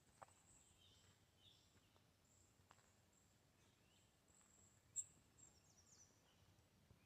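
Near silence outdoors, with scattered faint high bird chirps and a faint steady high-pitched hum. A single sharp click about five seconds in.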